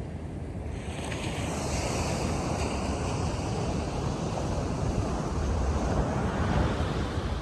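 Ocean surf breaking and washing up the beach, the hiss swelling about a second in, with wind buffeting the microphone.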